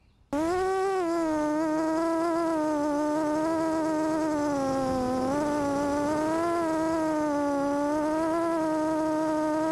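FPV quadcopter's motors and propellers spinning up suddenly about a third of a second in, then a loud steady buzzing whine as it flies low, its pitch wavering up and down with the throttle. Heard close up through the quad's own onboard camera.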